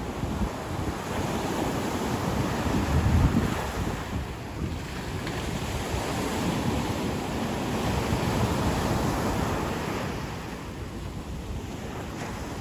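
Ocean surf: waves breaking and washing up the beach, swelling and ebbing, with wind rumbling on the microphone.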